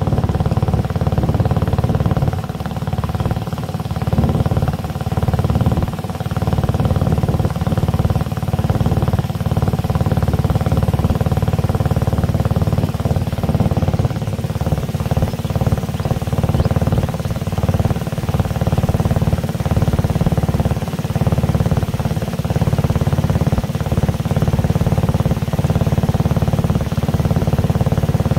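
Boat engine running steadily at a constant speed, with a low rumble beneath it.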